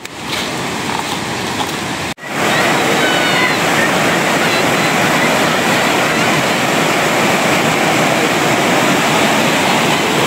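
Rushing water running steadily and loudly, as from a fast stream or falls. The sound drops out abruptly about two seconds in and resumes louder. A few faint, thin chirps show over it about three seconds in.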